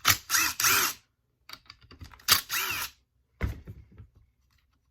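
Parts and tools being handled on a workbench: two scraping bursts, the first about a second long and the second shorter, then a single sharp knock as something is set down.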